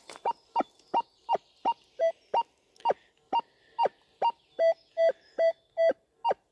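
Metal detector beeping in short, evenly spaced tones, about two or three a second, as the coil is swept back and forth over a coin. The beeps are at a higher pitch at first, with a lower tone joining more and more of them in the second half. This is the detector's response to the target, which the detectorist calls a heavy signal.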